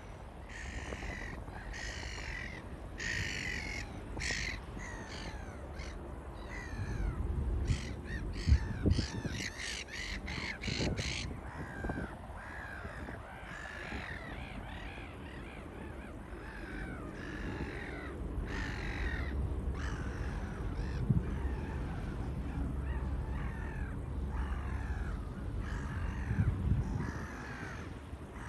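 Birds calling over and over in quick runs of short rising-and-falling calls, over a low rumble that swells about a third of the way in and again through the second half.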